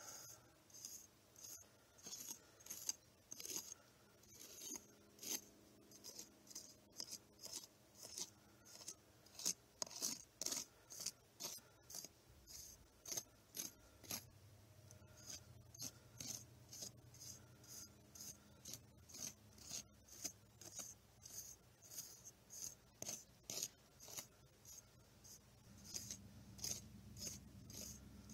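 X-Acto knife blade drawn across wet sand-topping concrete, carving strata lines: faint short scraping strokes, about two a second.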